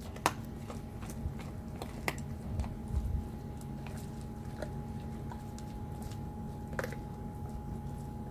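Golden retriever chewing and biting on a raw veal neck, with irregular sharp bites and crunches. A steady hum runs underneath.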